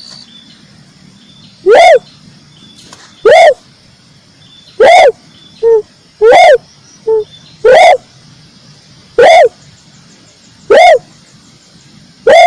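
Red turtle dove calling: a series of loud, short, upward-sliding cooing notes about every second and a half, with two shorter, softer notes slipped in between.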